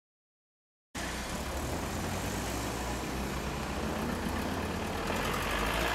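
Silence, then about a second in street sound cuts in: a car engine running at idle with a steady low hum, swelling near the end as the car moves off.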